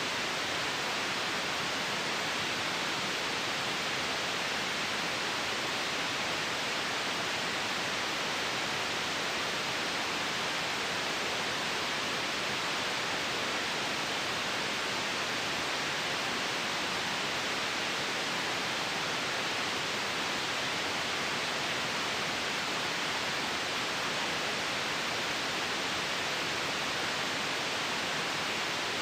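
Steady white noise: an even, unchanging hiss, strongest in the upper-middle range.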